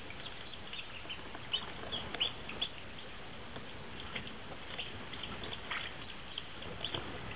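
Ducklings peeping: short high-pitched calls, several in quick succession about one and a half to three seconds in, then a few more scattered.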